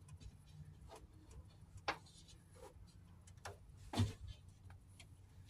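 Light clicks and knocks as a car door's window glass is handled and worked into its track, with two sharper knocks about two and four seconds in.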